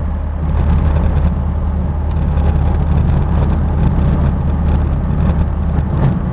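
In-cab noise of a 2007 Ford E-series van with a gas V10, cruising at highway speed: a steady low engine drone under even tyre and road noise.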